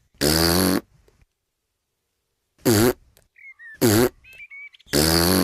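Four short, buzzy vocal noises from a cartoon piglet. The first and last are the longest, and faint high chirps come between the middle two.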